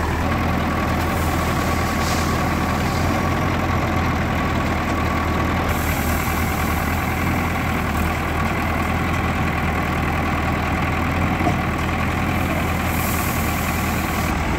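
Diesel engine of an old JCB 3DX backhoe loader running steadily while it works its backhoe loading crushed stone, with two stretches of added hiss, around six seconds in and near the end.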